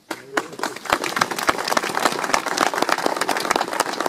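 Audience applauding: dense clapping that starts abruptly and carries on steadily.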